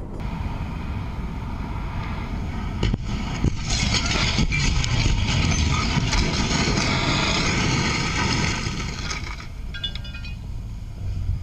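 Car crash on a road: a sharp knock about three seconds in, then several seconds of loud rushing noise, and a short run of high beeps near the end.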